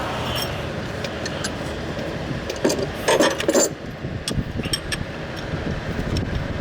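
Metal hand tools clinking and scraping while the A/C compressor clutch installer tool is taken off, with scattered sharp clicks and a denser run of clinks about three seconds in.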